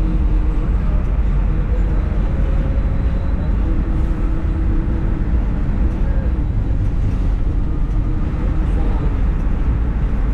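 Steady road traffic and vehicle engine noise, a continuous low rumble without breaks.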